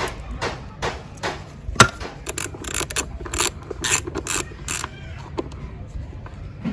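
A hand tool working on motorcycle parts with rhythmic mechanical strokes, about two or three a second, and one sharper click about two seconds in. The strokes stop about five seconds in.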